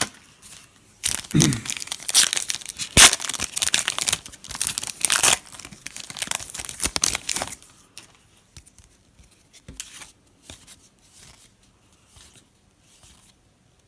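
A foil trading-card pack wrapper being torn open and crinkled: loud tearing and crinkling for about six seconds, then only faint rustles and ticks as the cards are handled.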